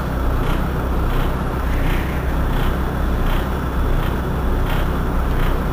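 Irisbus Citelis 18 articulated city bus's rear-mounted engine idling steadily while the bus stands at a stop.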